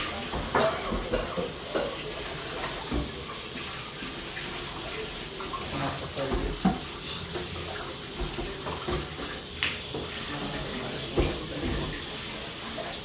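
A steady hiss runs under a few sharp knocks of pool balls being struck and colliding on the table, with faint voices in the background.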